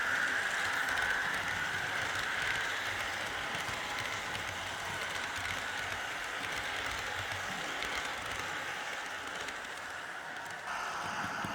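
H0 model train running along the layout's track: steady rolling and clattering of the wheels on the rails, fading a little at first and growing louder again near the end.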